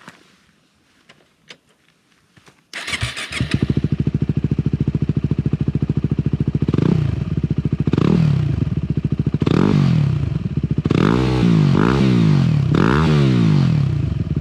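Yamaha WR250R's 250 cc single-cylinder four-stroke engine starting about three seconds in and idling through an FMF Power Core 4 exhaust with the spark arrestor removed, then revved in several quick throttle blips that rise and fall.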